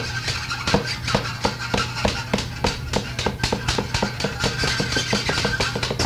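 Lo-fi rock song from a home-recorded demo tape, played on home-made instruments: fast, even drum hits, about five a second, over a steady low drone.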